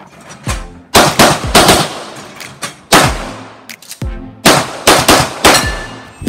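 Handgun shots fired in quick pairs and short strings, about a dozen sharp cracks, each with a short echoing tail.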